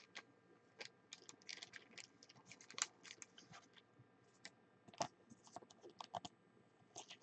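Faint, scattered clicks and light rustles of hands handling a trading card, the most distinct a little under 3 s in and about 5 s in.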